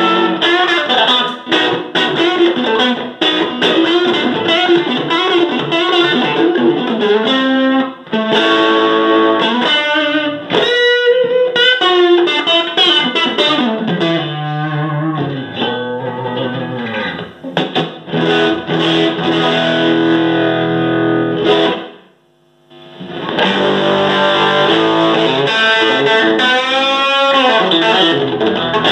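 Electric guitar, a Fender Stratocaster, played through a Fender Hot Rod Deluxe tube combo amp: a continuous improvised run of notes and chords with bent, wavering notes. There is a short pause about three-quarters of the way through.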